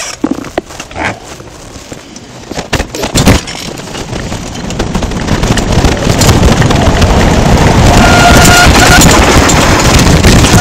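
Mountain bike descending a dirt track: clicks and knocks from the bike over rough ground, then wind rushing over the camera's microphone and tyre noise building loud as speed picks up, with a short squeal near the end.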